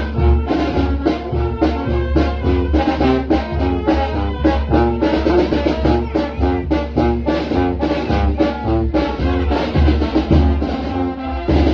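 Mexican brass band (banda) playing: trumpets and trombones over a steady low bass part, with a regular beat.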